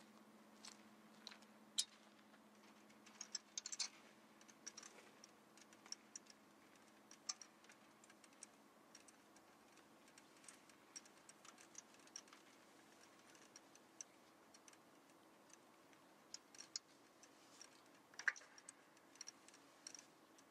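Near silence: a faint steady low hum with scattered, irregular faint clicks and ticks, a few slightly louder around four seconds in and near the end.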